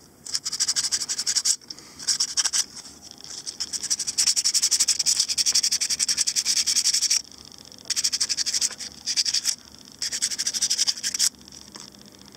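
Hand-sanding the fresh epoxy on a seacock's tapered plug with a small piece of sandpaper, smoothing the epoxy filled over its corroded edges. Quick back-and-forth scratching strokes come in about five bursts with short pauses between.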